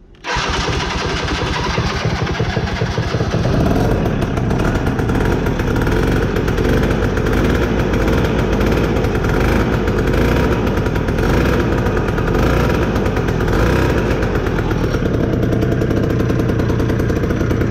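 Red utility ATV engine starting from cold right at the turn of the key and running steadily and loudly.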